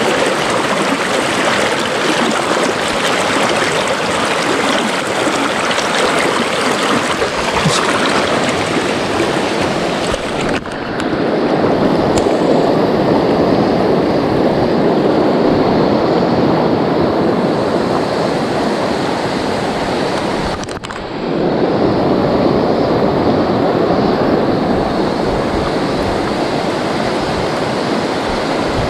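Steady rush of fast, shallow river current running over rocks, heard close to the water. The rush dips briefly twice.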